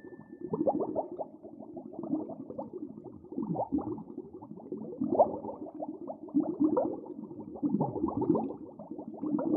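Muffled underwater sound picked up by a submerged camera: irregular bubbling and gurgling with short warbling pitch glides and small clicks, all dull and low with no high end.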